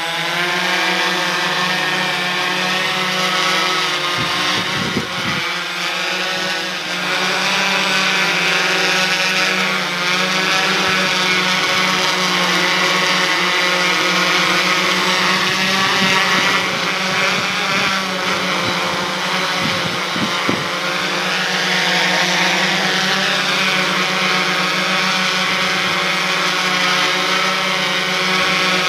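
Q450 quadcopter's brushless motors and propellers whining in flight, their pitch drifting up and down as the throttle changes.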